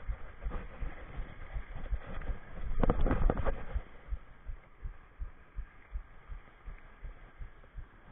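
Low thumps of handling noise, a few a second, as a Shimano Stradic FK 5000 spinning reel is cranked while fighting a fish, with a brief louder rush of noise about three seconds in.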